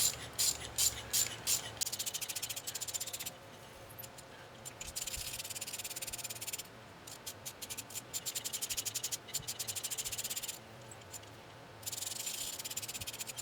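Rapid, even clicking in several runs with short pauses between, from tapping threads into drilled holes in a cast iron plate. It sounds like a ratcheting tool being worked.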